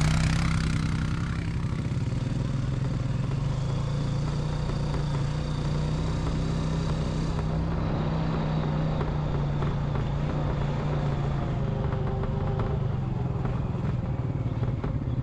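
ATV engine running steadily at a low, even speed while riding a rough dirt trail.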